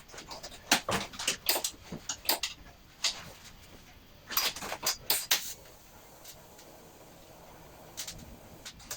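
A run of sharp clicks and light knocks of tools and metal parts being handled, coming in three bunches with short pauses between.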